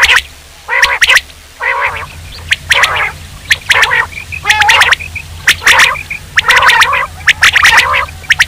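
Common quail calls played from a hunting lure recording: harsh, gargling calls repeating about twice a second with sharp clicks between them. A low hum comes in about two seconds in.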